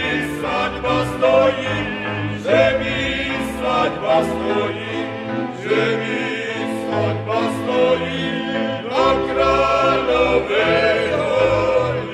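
A men's folk singing group sings in Horehronie multipart harmony. Each phrase starts with an upward slide in the voices, and a folk instrument orchestra accompanies with sustained low notes.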